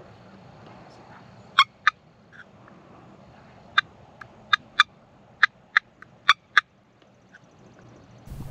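Wild turkey calling: a series of short, sharp, loud notes, several coming in pairs about a third of a second apart.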